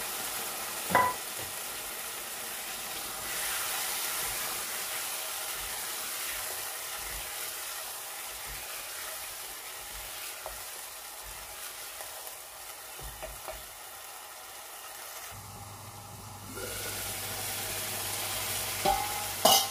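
Chicken korma with yogurt sizzling as it fries down over a high gas flame, stirred with a silicone spatula. There is a sharp knock about a second in and a few smaller ticks, with the loudest knocks coming near the end.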